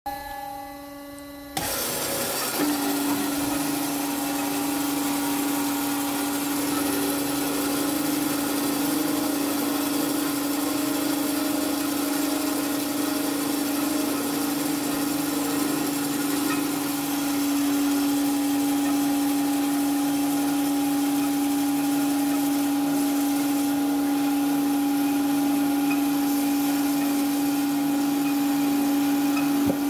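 Thomas Super Trad 350 DG semi-automatic metal-cutting band saw running, with a steady hum over a rushing machine noise. The sound jumps suddenly louder about a second and a half in, then holds even.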